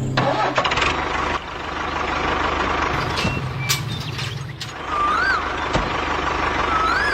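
A small engine running steadily, with a low pulsing hum, a few sharp clicks in the middle, and two short rising-and-falling chirps about five and seven seconds in.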